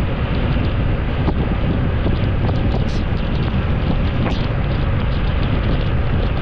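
Steady road noise of a moving vehicle on a wet road: a constant low rumble with wind and tyre noise, and a few faint ticks.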